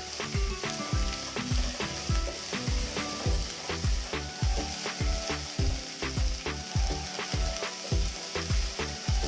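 Chopped cabbage and carrot sizzling in hot oil in a pan over a high flame as they are stirred, under background music with a steady beat.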